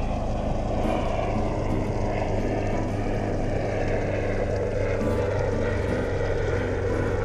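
Boat's 90 hp outboard motor idling with a steady low hum.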